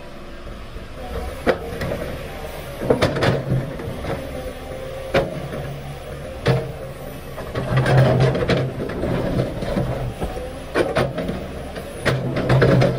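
Komatsu PC500LC hydraulic excavator digging rock and earth: its diesel engine runs steadily and swells several times under load, while the bucket's steel teeth scrape and knock sharply against stone.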